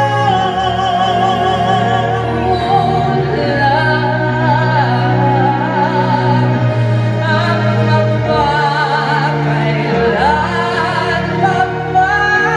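A woman singing a slow ballad live into a microphone, holding notes with vibrato over a sustained instrumental accompaniment.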